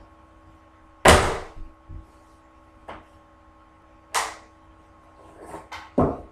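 Irregular sharp knocks and bangs from hand work at a wooden floor, the loudest about a second in and another at about four seconds, with lighter knocks between and a quick cluster near the end.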